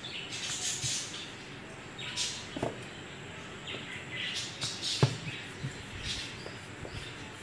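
Wooden rolling pin rolling wheat dough flat on a round wooden board (chakla): repeated rubbing, swishing strokes, with a couple of sharp knocks, the loudest about five seconds in.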